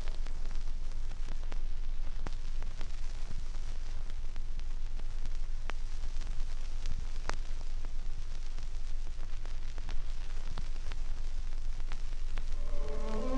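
Surface noise of a 16⅔ rpm Seeburg 1000 background-music vinyl record in the silent groove between two tracks: steady hiss and low rumble with scattered clicks and pops.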